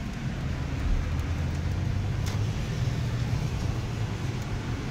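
Car cabin noise while driving on a wet road: a steady low engine and road hum under a hiss of tyres and spray, with a single sharp click about two seconds in.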